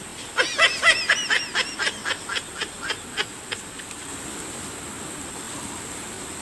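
A chicken squawking in a rapid run of calls that starts about half a second in and thins out within about three seconds, over a steady high buzz of insects.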